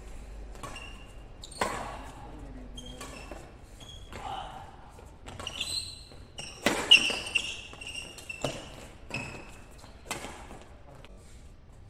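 Badminton rackets striking a shuttlecock in a doubles rally: sharp hits a second or so apart, the loudest about seven seconds in, with shoes squeaking on the court mat between shots.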